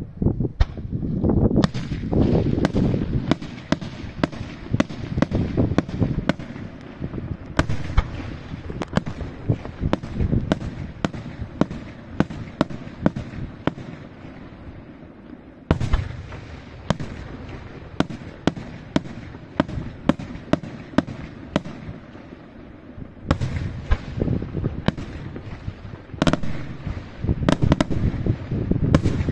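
Aerial firework shells bursting in quick, irregular succession: dozens of sharp bangs over a continuous low rumble of echoes. There is a brief lighter spell about halfway through, then a dense cluster of bangs near the end.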